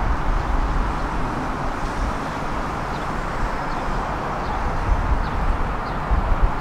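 Steady road traffic noise from a busy city road, an even hiss and rumble of passing cars, with a few faint high chirps over it.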